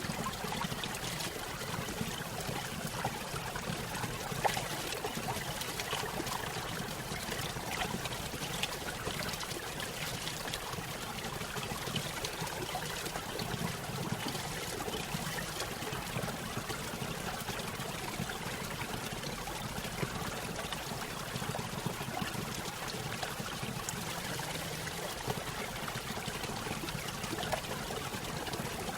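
Running water trickling and splashing steadily, with a low rush underneath.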